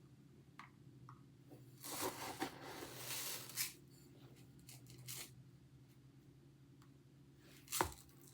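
Kitchen handling noises while rice is measured out: a rustling, pouring noise lasting about two seconds, a few light clicks, and one sharp knock near the end, over a faint steady hum.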